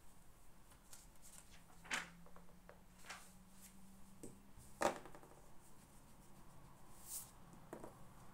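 Desk sounds of someone studying: scattered light taps and clicks of papers and stationery being handled, with two louder knocks about two and five seconds in and a short papery swish near the seven-second mark.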